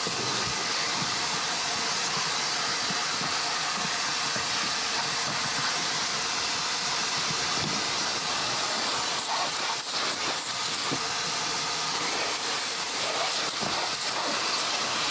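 Vacuum cleaner running steadily, its nozzle on a long corrugated hose sucking over the car's floor carpet with an even hiss.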